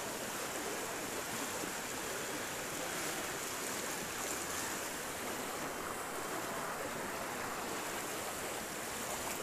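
Steady rushing of fast-flowing floodwater pouring across a road.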